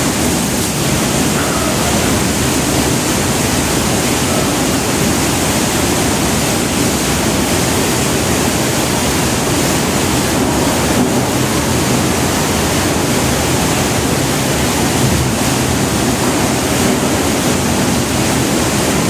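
Water surging down an indoor flash-flood exhibit behind glass: a steady, loud rushing of water that does not let up.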